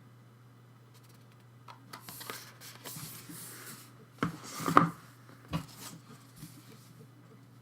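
Hands handling CD album packaging: cardboard and paper rubbing and rustling, with a few sharp knocks about halfway through, the loudest near the middle, over a steady low hum.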